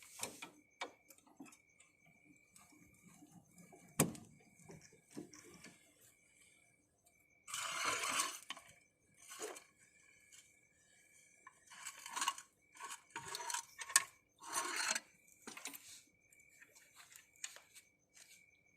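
Metal tools and parts clinking and rattling during work on a car, with a sharp knock about four seconds in and several longer scraping or rustling bursts. A faint short high chirp repeats about once a second throughout.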